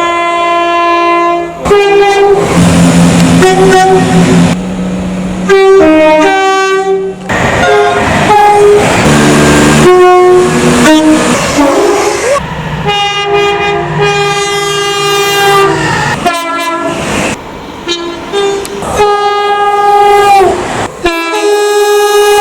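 Train horns blowing a string of long blasts, each a chord of several notes at once. The clips are spliced back to back, so the chord changes abruptly from one horn to the next every few seconds, with the rumble of a passing train underneath at times.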